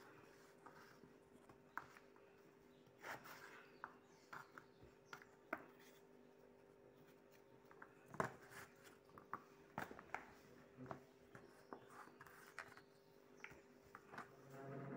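Faint, scattered knocks and taps of a kitchen knife and cut potato wedges on a cutting board as potatoes are cut and the pieces handled, over a steady low hum.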